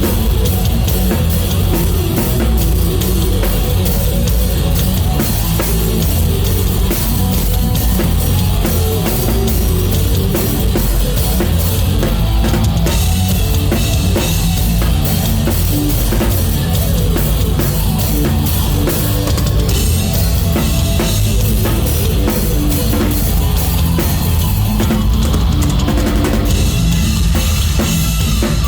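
Live rock band playing loud, with the drum kit prominent: kick drum, snare and cymbals driving a steady beat under distorted guitars and bass.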